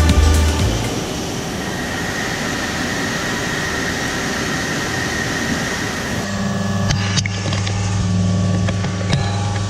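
Mazak Integrex i-450H ST multi-tasking machine machining S45C steel: a steady hiss of cutting noise, joined about six seconds in by a steady low hum with overtones.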